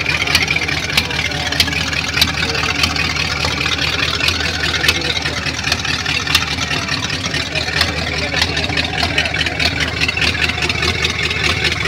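Hot rod's Ford flathead V8 idling steadily through short open chrome exhaust pipes.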